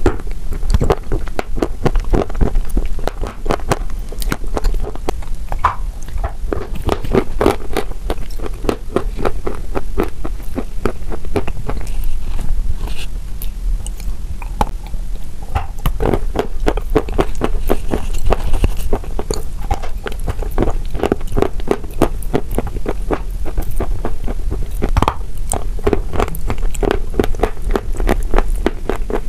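Close-miked biting and chewing of wet chalk chunks coated in a creamy paste: a dense, continuous run of wet crunches.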